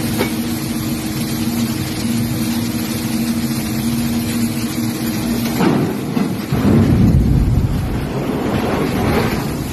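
A motor hums steadily under loud, rushing noise like wind on the microphone. A little over five seconds in the hum gives way to louder, uneven rumbling.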